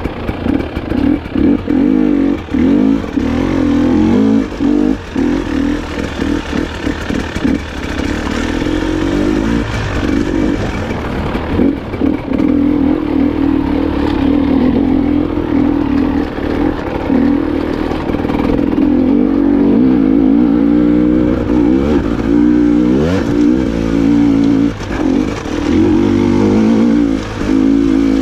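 300 cc two-stroke enduro motorcycle riding off-road, the engine revving up and down as the throttle is worked on and off, with frequent short chops in the first half and a clear rev-up near the end, and chassis clatter over rough ground.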